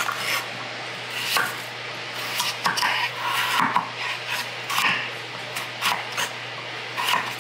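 Chef's knife slicing potatoes on a wooden cutting board: irregular knocks of the blade striking the board, one or two a second, over a steady low hum.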